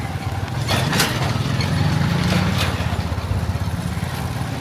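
Vehicle engine running steadily with a low, even hum, with a few short clicks or knocks about a second in and again past the middle.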